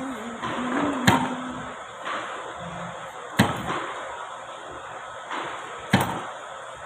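Three sharp knocks about two and a half seconds apart: a hammer striking, as when tapping a steel rule blade into a die-cutting die board.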